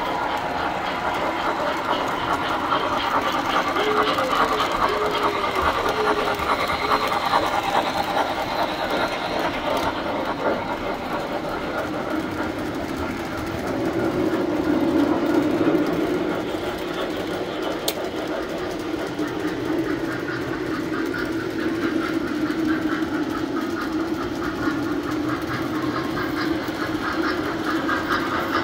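Tinplate model trains running on three-rail track: continuous clatter of wheels over the rails with a steady electric-motor hum, a little louder near the middle as a train passes close.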